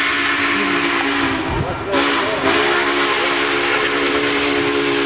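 Union Pacific Northern No. 844's steam whistle blowing a long, steady chord, broken briefly about two seconds in, then sounding again until it cuts off at the end, over a steady hiss.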